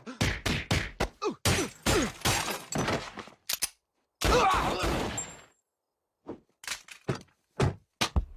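Cartoon fight sound effects: a rapid run of thuds and blows, then glass cracking and shattering about four seconds in, followed by a few scattered knocks after a short pause.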